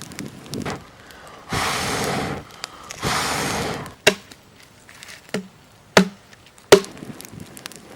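Two long rushes of air, each about a second, like breath blown onto the tinder fire. Then three sharp cracks like dry sticks snapping, the last the loudest.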